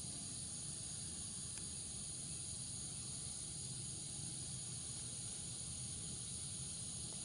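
Steady high-pitched insect chorus, with a faint low rumble underneath.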